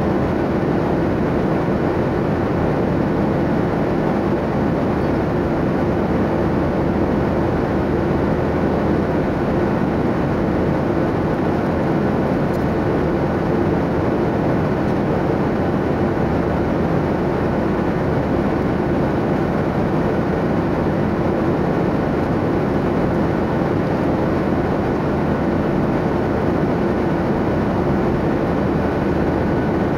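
Airliner cabin noise in flight: a steady, even rush of engine and airflow noise with a low hum, unchanging throughout.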